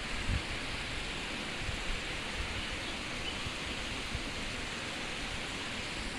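Steady rushing of open water in a treatment-plant clarifier tank, with wind buffeting the phone's microphone in irregular low thumps.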